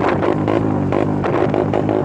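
Motorcycle engine revved in a rhythmic 'call', its pitch swooping up and down several times a second.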